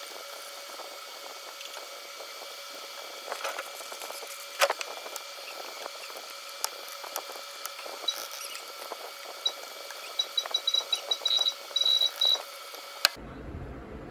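Light clicks and taps on a mechanical keyboard, sparse at first, then a quick run of key clicks about ten seconds in. A steady high-pitched electrical whine runs underneath, and the background changes abruptly near the end.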